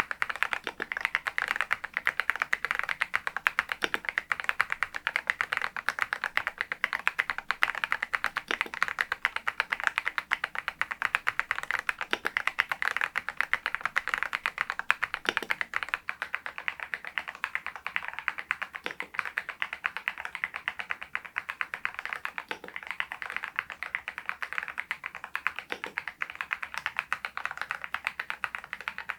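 Typing on an RK R99 mechanical keyboard with its stock cream switches: a fast, steady run of keystrokes, with a deeper knock every three to four seconds.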